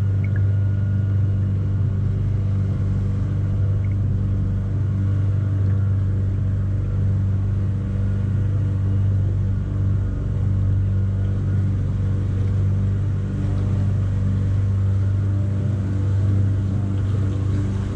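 A small tour boat's engine running steadily with a deep, even hum.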